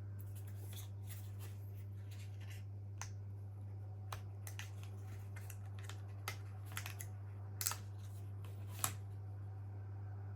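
Faint, scattered small clicks and light handling noises, a dozen or so at irregular spacing, over a steady low hum.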